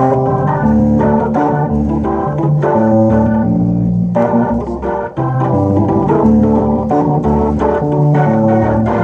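Electronic keyboards played live: held chords that change every half second to a second over a moving bass line.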